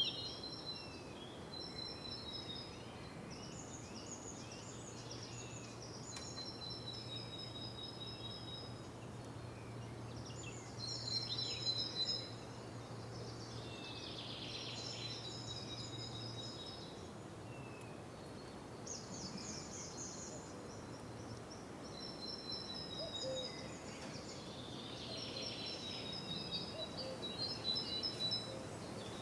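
Outdoor nature ambience: small songbirds singing short, high, repeated trilled phrases every few seconds over a steady background hiss.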